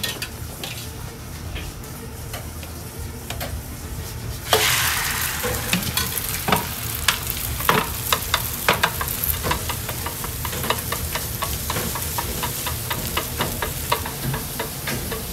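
Egg mixture sizzling in a hot oiled rectangular tamagoyaki pan over a gas burner. The sizzle starts suddenly about four and a half seconds in, as fresh egg meets the pan, and goes on from there. Chopsticks click and scrape against the pan as the egg is stirred and spread.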